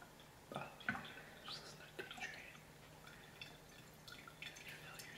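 Tea dripping in small irregular drops from a lifted glass tea infuser into a mug of tea, faint throughout, with a couple of louder drops about a second in.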